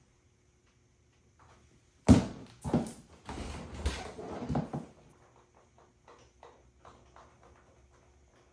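A loud thump about two seconds in, then about three seconds of further knocks and rustling as a person in high-heeled platform pumps steps down from a padded bench and sits on it. Faint light taps follow.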